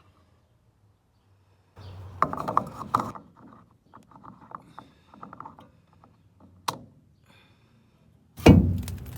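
Mechanical clattering and scattered clicks from hard objects being handled, ending in one loud knock near the end.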